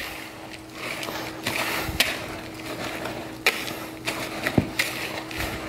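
Wire whisk stirring dry ingredients (flour and old-fashioned oats) in a plastic mixing bowl: a continuous scratchy rustle with a few sharp clicks of the wires against the bowl.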